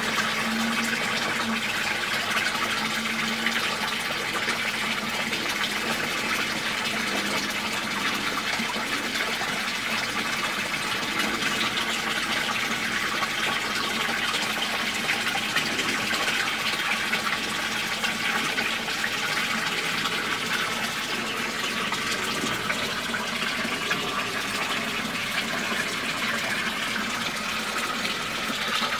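Steady, continuous rush and splash of moving water in a goldfish pond.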